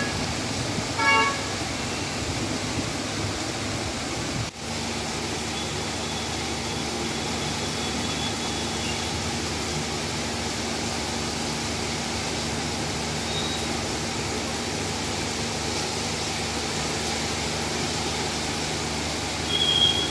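Heavy rain falling steadily over street traffic, with a vehicle horn tooting twice about a second apart at the start. After a brief drop about four and a half seconds in, a low steady hum runs under the rain.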